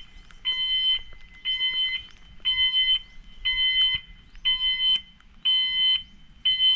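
Electronic alarm beeping in a steady rhythm: seven half-second beeps, one each second, each a steady tone of several pitches sounding together.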